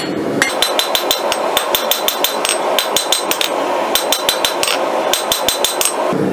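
Hand hammer striking a chisel held on red-hot steel over an anvil: a quick run of ringing metal blows, about three to four a second, that stops shortly before the end.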